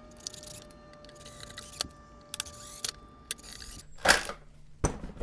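Cordless Ryobi drill driving small screws into a plastic dash panel: a steady motor whine for about four seconds, with a few light clicks, stops, followed by two loud knocks near the end.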